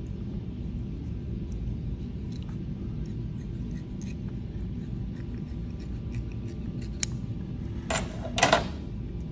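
Small dissecting scissors cutting through a squid's mantle, giving faint clicks over a steady low room hum, with a couple of louder, sharp metallic clicks near the end.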